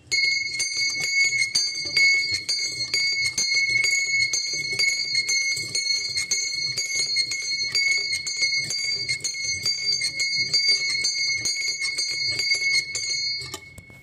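Small brass bell swung on its wooden wheel, its clapper striking rapidly and continuously to give one clear high ringing note with bright overtones. The strikes stop near the end and the ringing fades out.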